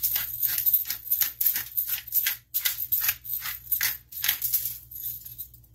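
Hand pepper mill grinding peppercorns in quick twisting strokes, about four grinds a second, stopping about four and a half seconds in.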